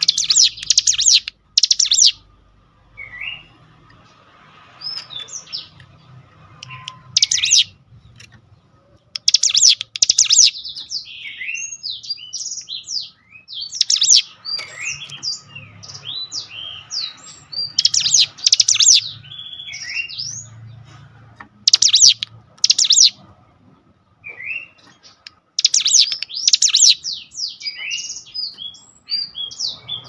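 Ciblek gunung, a prinia, singing in full voice: loud, rapid chattering bursts about every four seconds, with shorter single chirps and whistled notes between them.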